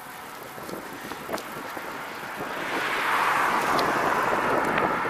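Road traffic passing: the tyre and road noise of a car swells about halfway through and stays loud, over wind rushing on the microphone.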